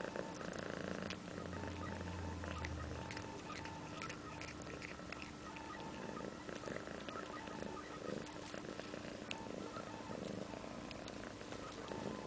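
Ginger-and-white domestic cat chewing and tearing at blades of grass, with many short crisp clicks, over a steady purr.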